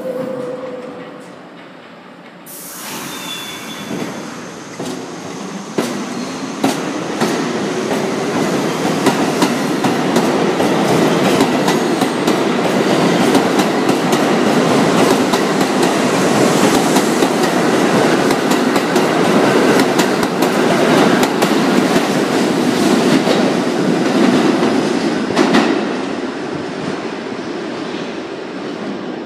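R62A New York City subway train departing a station: the last note of the door-closing chime, a sudden hiss about two and a half seconds in, then the cars running out with wheels clattering over rail joints. The clatter builds to its loudest in the middle and eases off near the end as the last car leaves.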